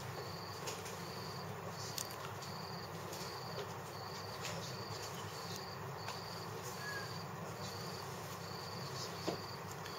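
A cricket chirping steadily in the background, about three short chirps every two seconds, with a few faint clicks.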